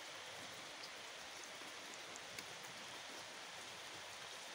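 Soft, steady hiss of rain falling, with a couple of faint ticks.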